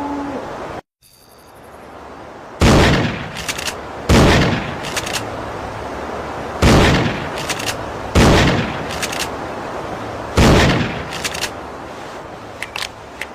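Remington 870 Express pump-action shotgun fired five times, with a few sharp clicks after each shot. A run of light clicks follows near the end.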